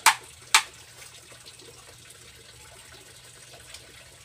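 Two sharp chops of a large knife through a tulingan (bullet tuna) onto a chopping board, half a second apart near the start, with a faint steady hiss behind.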